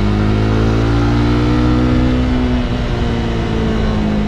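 Honda CB300R's single-cylinder engine running under way. Its pitch rises a little, then eases off from about two seconds in, over a steady rush of wind noise.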